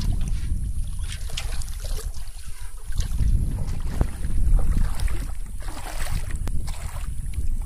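Wind rumbling on the microphone, with water sloshing and splashing at intervals as someone wades through shallow pond water.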